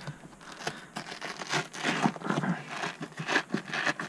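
Velcro hook-and-loop fastening under a car's bottom seat pad ripping apart as the pad is peeled up: a run of irregular short crackling rips.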